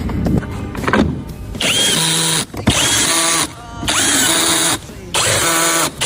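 Handheld power tool run in four short bursts, each spinning up with a rising whine and then running steadily for about a second, after some clattering of tools at the start. This is the tool work of removing parts for a front wheel bearing replacement.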